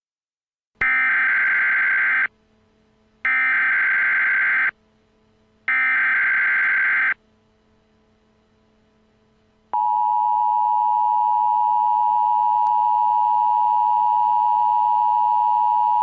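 Emergency Alert System SAME header: three identical bursts of screeching digital data, each about a second and a half, with short gaps between them. About ten seconds in, the steady two-tone EAS attention signal starts and holds.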